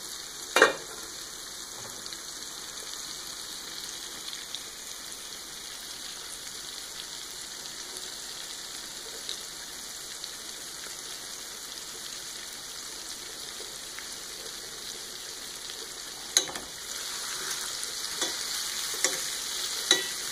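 Calamari rings deep-frying in oil in a stainless steel pan, a steady sizzle. Near the end the rings are stirred and turned in the pan: the sizzle grows louder and there are a few sharp knocks against the pan.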